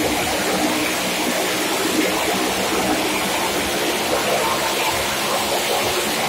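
Loud steady din of a stunt motorcycle engine running as it circles the wooden wall of a well-of-death arena.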